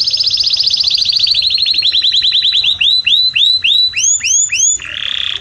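Canary singing: a fast high trill that slows into a run of separate swooping notes, about four a second, then switches to a lower fast trill near the end.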